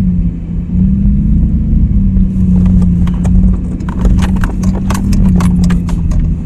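Pickup truck engine running steadily, heard from inside the cab while driving over a rough dirt track. From a few seconds in, repeated rattles and knocks from the cab as the truck bumps along.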